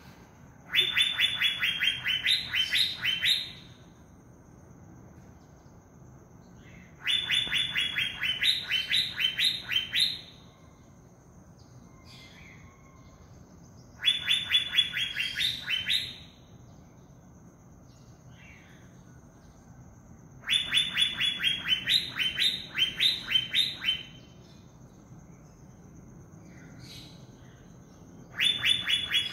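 Asian fairy-bluebird (cucak biru) in a cage singing its loud 'tembakan' burst song: phrases of rapid, ringing repeated notes, each two to three seconds long and closing with a few rising strokes, come about every seven seconds, four times, with a fifth starting near the end.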